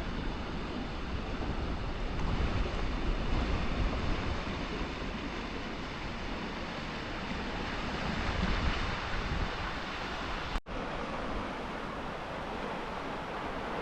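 Steady rush of flowing creek water, with wind rumbling on the microphone; the sound drops out for an instant about ten and a half seconds in.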